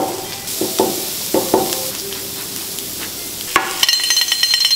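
Steak sizzling on a hot steel teppanyaki griddle. Several sharp knocks and clinks come in the first second and a half. Near the end a fast, even metallic clatter with ringing tones starts.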